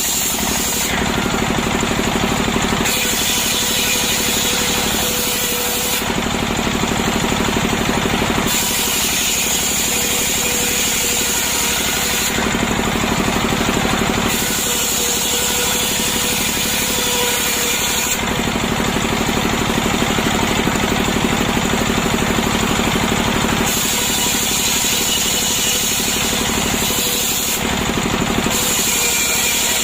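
Petrol chainsaw running steadily, ripping a freshly felled, still-wet breadfruit log lengthwise, its sound shifting back and forth every few seconds as it cuts.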